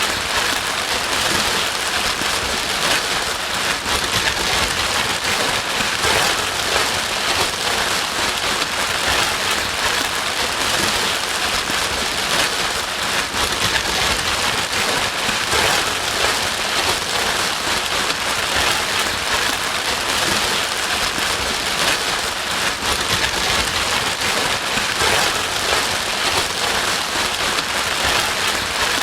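Steady heavy rain: an even, dense hiss of many drops that keeps on without change.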